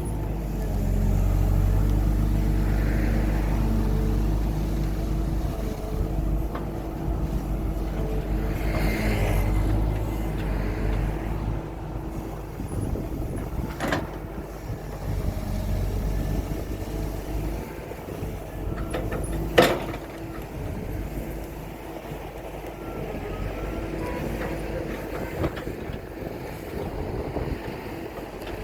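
Hydraulic excavator's diesel engine running under varying load, heavier for the first dozen seconds or so. Two sharp knocks cut through it, one about fourteen seconds in and a louder one about twenty seconds in.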